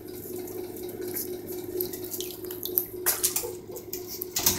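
Water in a bathtub: a steady run of water with scattered small splashes and taps as baby raccoons play in it, and a louder splash near the end.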